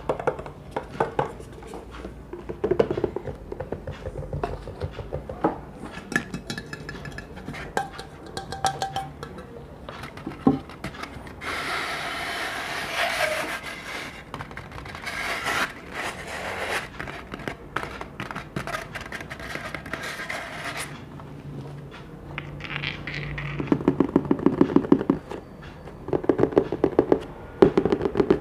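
Hands tapping and scraping on hard objects: scattered clicks and taps, a long stretch of rough scraping in the middle, and quick runs of rapid taps near the end.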